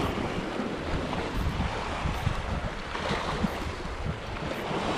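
Sea surf washing against shore rocks, with wind rumbling on the microphone.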